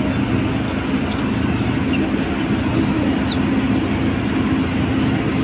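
Diesel engine of a heavy earthmoving machine running steadily at work, a deep, even drone.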